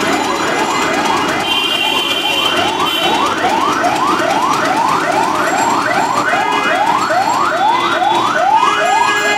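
A siren-like tone rising sharply in pitch over and over, about three times a second, above a steady street noise.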